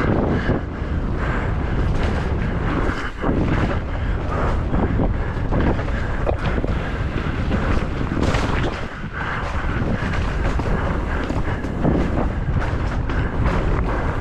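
Wind buffeting the microphone of a camera on a mountain bike descending at speed, over a steady rush of noise with frequent knocks and rattles from the bike on rough ground.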